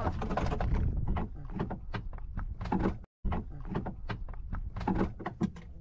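Wind rumbling on the microphone, with irregular knocks and clicks from handling a jigging rod and reel aboard a small boat.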